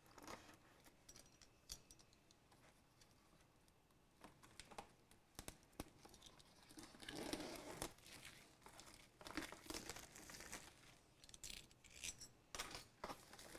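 Faint rustling and scraping of cardboard packaging as a product box is opened and handled, with scattered small clicks and taps. The rustling comes in several short stretches, more of it in the second half.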